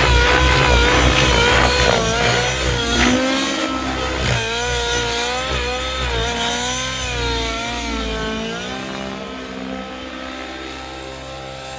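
O.S. 105 HZ-R two-stroke glow engine with a Powerboost tuned pipe and a dual-glow-plug head, driving a Thunder Tiger Raptor G4 RC helicopter in flight. Its pitch wavers up and down through the manoeuvres, and it grows fainter toward the end as the helicopter climbs away. The engine is tuned slightly rich.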